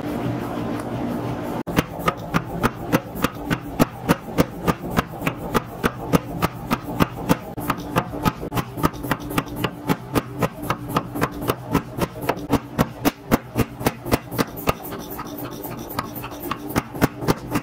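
Hammer blows on a red-hot Damascus steel billet on an anvil, starting about two seconds in: a fast, even run of about three to four sharp metallic strikes a second, over a steady low hum. Before the hammering, the forge fire blows steadily.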